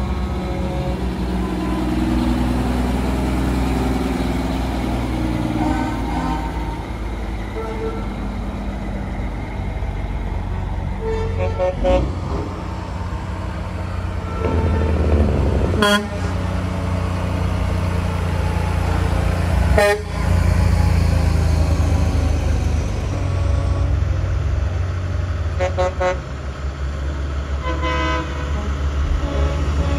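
Diesel semi trucks rumbling steadily as they pass in a truck parade, with truck horns sounding several times and two sharp short blasts midway.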